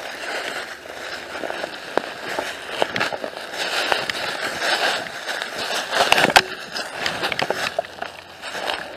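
Footsteps crunching through dry leaf litter and twigs on a woodland slope, with uneven crackles and one louder crunch about six seconds in.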